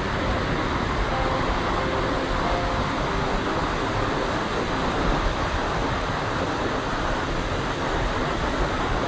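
Steady roar of Dettifoss, Europe's most powerful waterfall, on a glacial river: a loud, dense, even rush of falling water.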